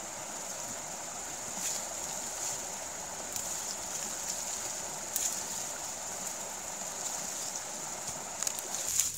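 Creek water running steadily, with scattered crunches and rustles of footsteps through dry leaves and brush. The running water stops abruptly near the end.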